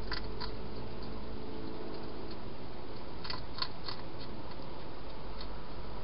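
A wild hedgehog crunching dry food from a bowl. A few small sharp crunches come near the start and a cluster of them about three seconds in, over a steady background hiss.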